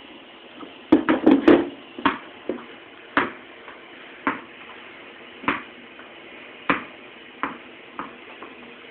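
A ball knocking on a hard floor: a quick flurry of knocks about a second in, then single knocks about once a second.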